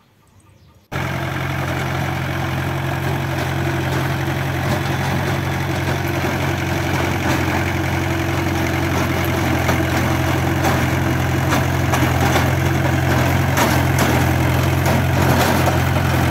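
Mahindra tractor's diesel engine running steadily, starting suddenly about a second in.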